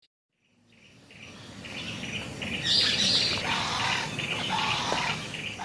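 Bird calls and chirping over a low background rumble, fading in gradually, loudest about halfway through, then fading away.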